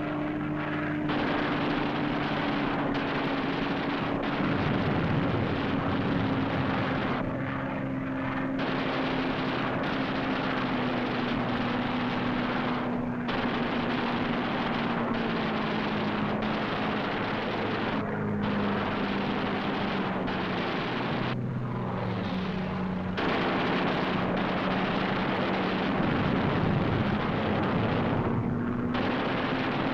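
Fighter plane's piston engine droning steadily, its pitch slowly falling and lifting a little near the end. Over it run long rattling bursts of machine-gun fire, broken by several short pauses.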